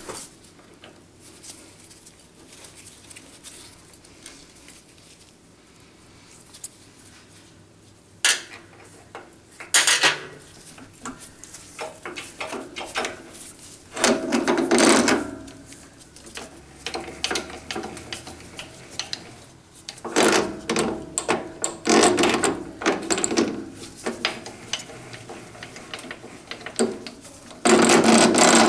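Steel lathe parts and hand tools clinking, scraping and clattering as the leadscrew and its end bracket are unbolted and worked loose: quiet at first, a sharp click about eight seconds in, then several irregular bursts of metallic clatter, the loudest near the end.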